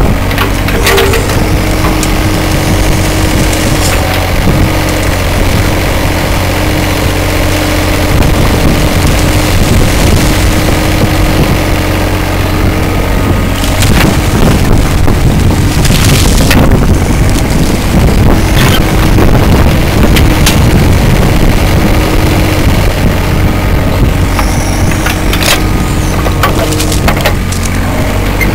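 Hitachi mini excavator's diesel engine running steadily under hydraulic load while its bucket digs and scrapes through mud, stones and dead brush in a drain. Twigs crack and the bucket knocks against stone now and then.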